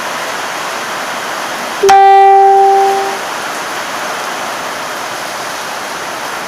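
Heavy rain falling steadily. About two seconds in, a loud single pitched tone like a horn sounds suddenly, holds for just over a second and fades.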